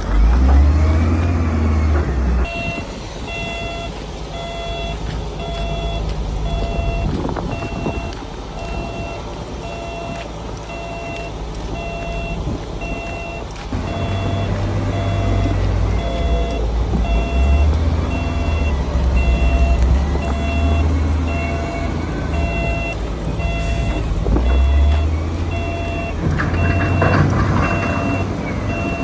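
Heavy diesel earthmoving machine running and working under load, its low engine note rising and falling. From about two and a half seconds in, a reversing alarm beeps steadily at an even pace.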